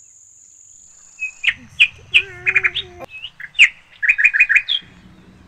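A songbird singing: a string of sharp chirps that twice breaks into a quick run of four or five notes. A thin, high, steady tone sounds before the chirps begin.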